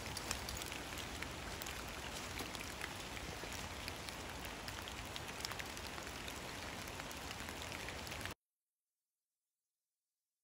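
Steady rain pattering, a hiss dotted with many small drop ticks; it cuts off suddenly about eight seconds in.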